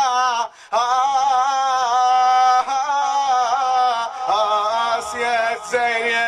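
A man singing long held notes that waver in pitch, melismatic and chant-like, amplified through a microphone and loudspeaker. There is a short break about half a second in.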